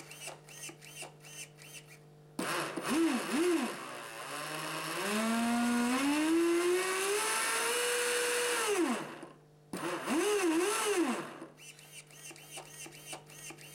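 Traxxas Spartan RC boat's electric drive motor spinning up. The whine climbs in steps, holds high, then winds down about nine seconds in, and a second short burst follows. Each run opens with quick up-and-down chirps, with rhythmic light ticking before and after.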